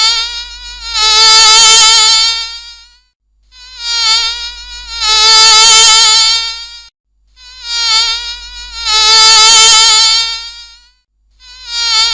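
Bee's wing buzz in flight, swelling and fading as if it flies past close by, repeated three times with short silent gaps between passes and a fourth pass starting near the end. The pitch stays fairly steady with a slight waver.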